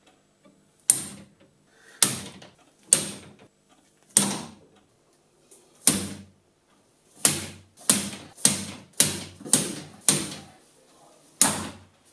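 A hammer strikes a steel hex key gripped in a small drill's chuck, about a dozen sharp metal blows. The blows come about a second apart at first, then faster, about every half second, in the second half. They are meant to shock loose a chuck stuck on its spindle.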